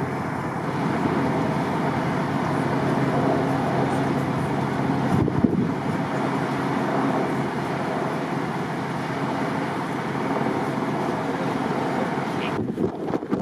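Strong wind buffeting the microphone in a loud, steady rush, with a vehicle engine running steadily underneath. A brief thump about five seconds in; the wind noise drops away suddenly near the end.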